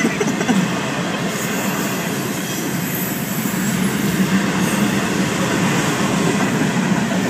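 Florida East Coast freight train cars rolling past, a steady rumble of wheels on rail with no let-up.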